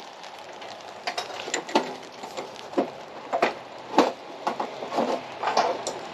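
Irregular clicks and clanks of tools and equipment being handled, a dozen or so sharp knocks spread over a few seconds.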